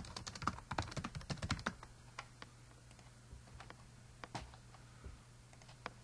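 Typing on a computer keyboard: a quick run of keystrokes for about the first two seconds, then only a few single clicks spaced a second or so apart.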